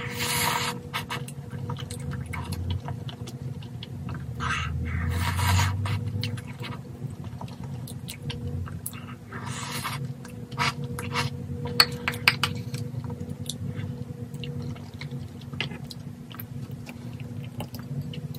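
Close-up eating sounds from cheesy tteokbokki: chewing, and several short slurps from a ceramic bowl, with small clicks of wooden chopsticks against the bowl. A steady low hum runs underneath.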